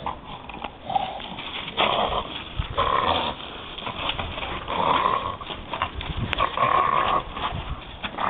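Staffordshire bull terrier gnawing at and shoving a wooden log, making rough, noisy breaths and grunts in repeated short bursts.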